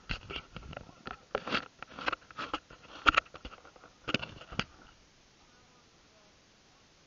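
A run of irregular clicks and knocks, some with a short ringing, for about five seconds, then they stop and only faint background hiss remains.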